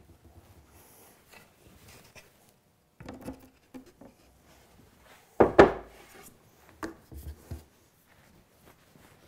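Wooden drawer boxes handled on a workbench: scattered light knocks and scrapes of wood on wood, with one louder knock about five and a half seconds in.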